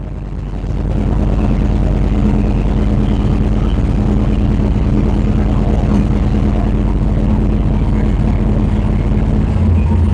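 Race truck's engine running steadily, recorded through an overloaded microphone that makes it sound muffled and boomy, "like somebody playing the tuba underwater".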